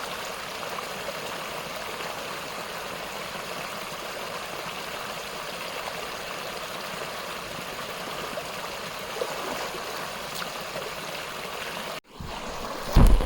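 Mountain stream running steadily, with water rushing and trickling. Near the end it cuts off suddenly, followed by a loud low thump.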